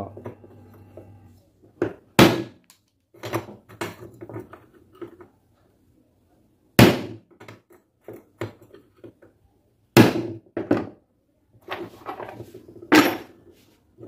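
Sleeve bushing being knocked out of and set into an electric fan motor's metal end bell with a screwdriver: four sharp knocks, a few seconds apart, with lighter clicks and handling noise between them.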